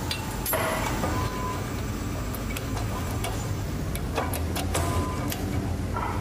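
Steady low hum of a workshop machine running, with scattered sharp metallic clicks and light knocks, a small cluster of them about four to five seconds in.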